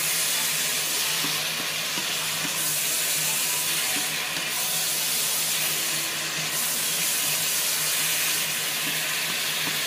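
Shrimp, minced pork and sator beans in shrimp-paste sauce sizzling in a hot wok as they are stir-fried with a wooden spatula: a steady hiss.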